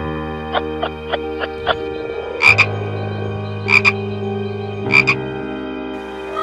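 Frog croaking three times, each a short double croak, about a second and a quarter apart.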